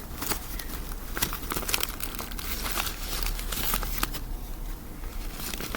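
Folded paper of a transforming origami model rustling and crinkling as it is worked by hand, with many small paper clicks and ticks.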